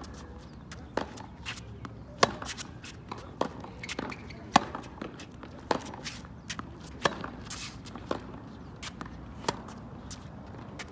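Tennis rally on a hard court: sharp racket-on-ball hits about every second, with the ball's bounces between them.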